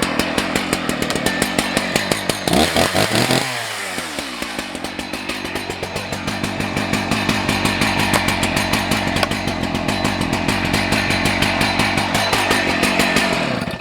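Husqvarna 181 SE two-stroke chainsaw running just after its first start. It is revved up and back down once about three seconds in, then runs on with a pulsing beat, its speed slowly creeping up, before the engine cuts out suddenly at the end.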